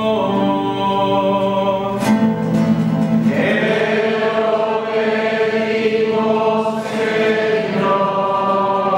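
Choir singing a slow sung response to the prayers of the faithful, with acoustic guitar accompaniment. The voices hold long notes, and more voices come in about three seconds in.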